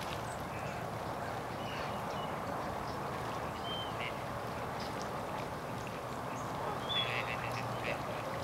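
Large flock of waterfowl calling on the water: a steady background chorus with short, higher calls scattered through it and a brief cluster of calls about seven seconds in.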